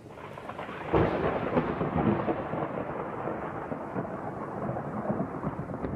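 Thunder-like rumbling sound effect accompanying an animated logo intro. It swells with a sharp crack about a second in, then rumbles on steadily.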